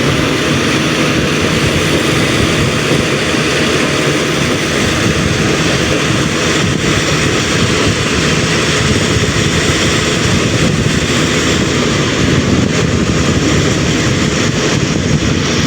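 Stone crushing plant machinery running: a loud, steady mechanical din with a low engine hum and a few faint knocks.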